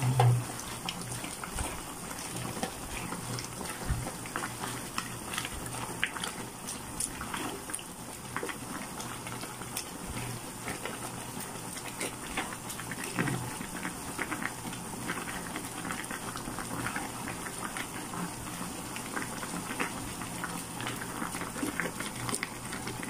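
Vegetable soup of saluyot and alugbati leaves bubbling in a pan on a gas burner, with steady crackling and a spatula stirring and turning the leaves in the broth. A short thump right at the start.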